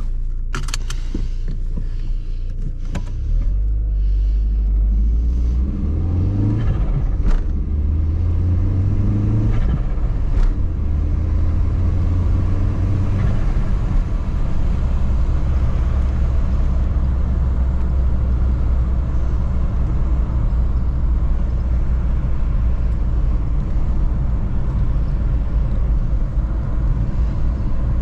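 Audi A3 1.8T's turbocharged inline four-cylinder engine under way: its pitch climbs twice between about six and ten seconds in as the car accelerates, then holds a steady low drone. A few short sharp clicks come in the first ten seconds.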